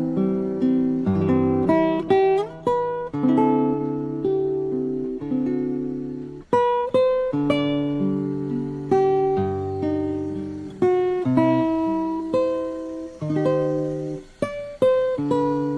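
Background music: acoustic guitar played in plucked notes and strums.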